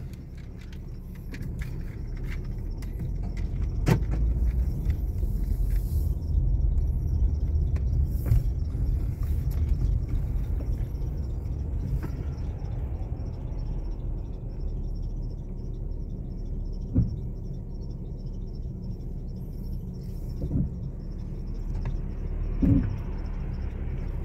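Car interior noise while driving: a steady low rumble of engine and tyres that builds as the car pulls away, with a few short knocks along the way.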